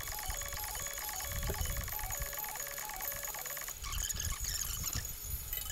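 Background music: a simple melody stepping back and forth between a few notes over a steady pulse, which stops about two-thirds of the way through. Under it are low knocks, then rustling, from hands handling an opened cassette recorder's circuit boards.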